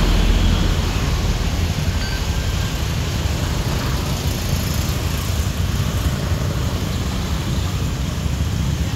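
Street traffic: motorbikes and cars running along the road, a steady low rumble with no single pass standing out.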